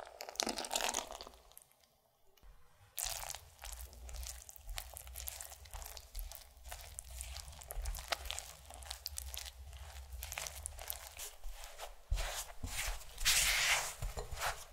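Milky liquid poured onto bread flour in a glass bowl for a couple of seconds. After a short pause, a silicone spatula stirs and scrapes the flour and liquid into a shaggy dough against the glass, a continuous crackly scraping with many small ticks, loudest near the end.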